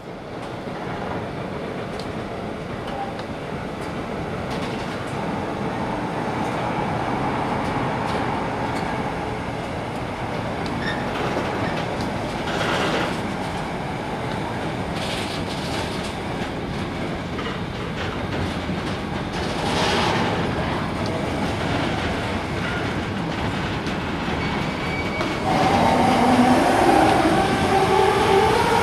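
Freight train of container wagons rolling past, with the clickety-clack of wheels over the rail joints and a steady rolling rumble. Near the end a louder wheel squeal sets in, partly rising in pitch.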